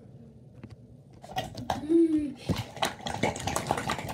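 A wet rubber shark hand puppet scrubbing against a sink and faucet: a quick, dense run of scuffing and rubbing noises. A brief hummed voice sound comes about two seconds in.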